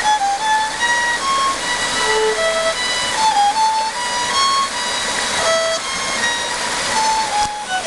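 Solo violin playing a slow melody of held, singing notes over the steady rush of a waterfall.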